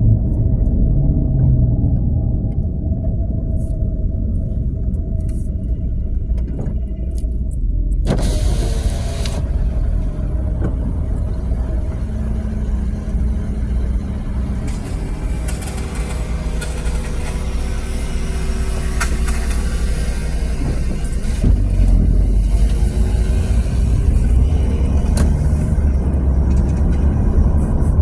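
Car driving, heard from inside the cabin: a steady low rumble of road and engine noise. About eight seconds in, a sudden burst of hiss joins it and a fainter wider hiss stays on after.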